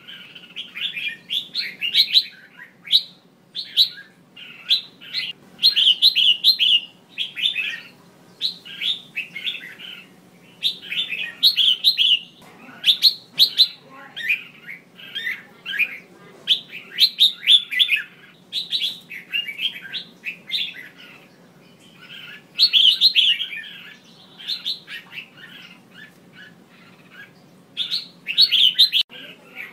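Female red-whiskered bulbul calling in quick runs of short, bright chirps. There is a quieter pause a little after the middle. It is the kind of female call keepers play to set off male bulbuls' singing.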